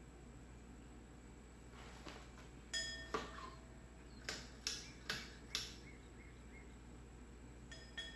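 A run of sharp clinks, each with a short ringing tone, like hard objects tapping together. There are about seven in the middle stretch and two more near the end, over a steady low hum.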